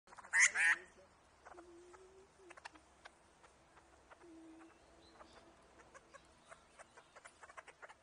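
Butcherbird giving two short harsh calls about half a second in, followed by faint scattered clicks and a low steady tone heard twice.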